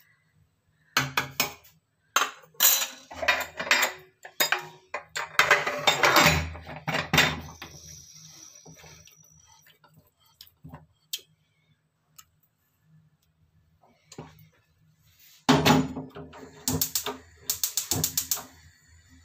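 Aluminium pressure cooker, its lid and a ladle clattering and knocking as the lid is fitted and locked, then heavy knocks as the pot is set on the gas hob's grate. Near the end comes a quick run of sharp clicks: the gas hob's igniter sparking to light the burner.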